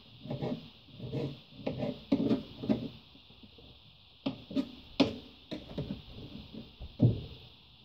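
A chef's knife slicing a tomato on a plastic cutting board: a run of quick cuts, about two a second, each ending with a knock on the board. Then a few sharper separate knocks and clacks on the board, the loudest about five seconds in.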